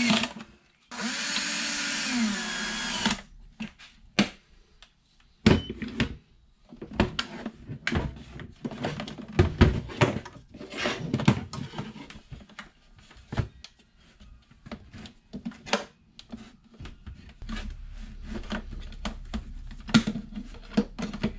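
Cordless drill-driver running a screw into the jump box's plastic case: a steady two-second run that slows near the end as the screw seats, then stops. After it come scattered clicks and knocks of the jump box, its cables and clamps being handled on the workbench.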